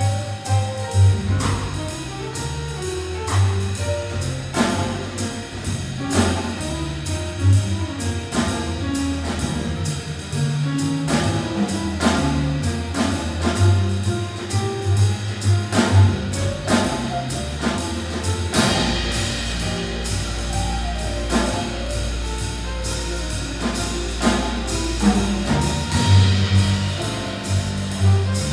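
Live high school jazz big band playing, with the saxophone section, piano, upright bass and drum kit; drum and cymbal hits keep a steady beat over a moving bass line, with a long held low note past the middle.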